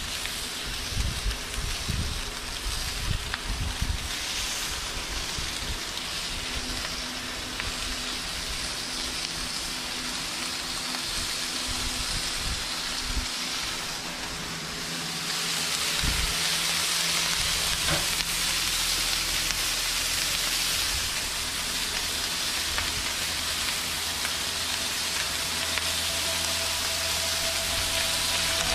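Thick-cut bacon strips sizzling on a hot cast iron flat top griddle, the sizzle growing louder about halfway through as more strips go down.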